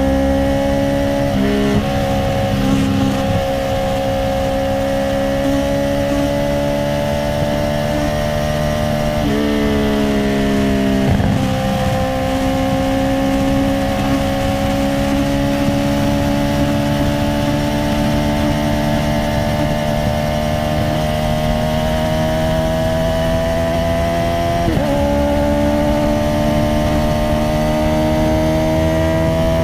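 Honda CBR650R inline-four through an Akrapovic titanium exhaust with no dB killer, pulling steadily at part throttle, its note climbing slowly in pitch. It is broken by quick gear changes: the revs jump up about nine seconds in, then step down about eleven seconds in and again a few seconds before the end.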